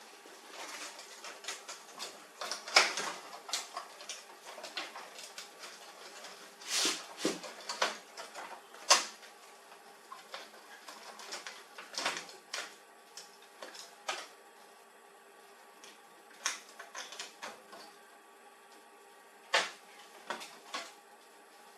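Hands working on an HP LaserJet 4345 laser printer: irregular sharp clicks, knocks and taps of its parts being handled, with the loudest knocks about three and nine seconds in, over a faint steady hum.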